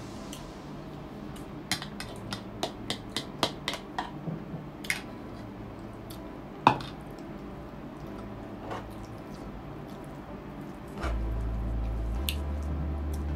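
Ceramic bowl and dish handling: a quick run of sharp clicks and clinks, then one louder knock a few seconds later. A low steady hum comes in near the end.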